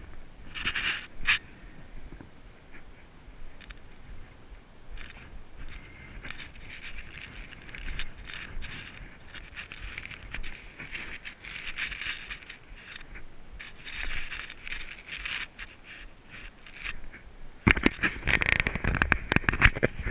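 Scraping and rustling from a body-worn camera as a hiker descends a granite slab: boots on rock, clothing and handling noise, with scattered clicks. The noise gets much louder and rumbles for the last couple of seconds.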